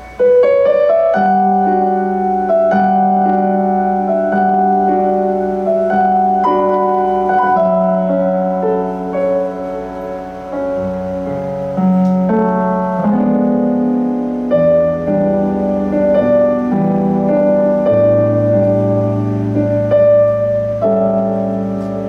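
Keyboard solo: slow held chords under a melody line, changing every second or two, with a deep bass note coming in about eighteen seconds in.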